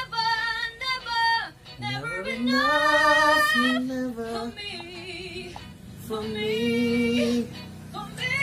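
A woman singing short phrases with a wide vibrato, then starting a long, steady held note near the end.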